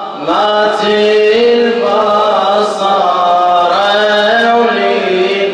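Male radood chanting a Shia elegy in a slow, melismatic line of long held notes that bend and slide in pitch.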